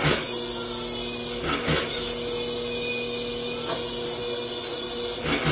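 Electric drive motor humming steadily as it strains against the compression of a homemade engine built from a two-cylinder air compressor, with a steady hiss. A couple of knocks about a second and a half in.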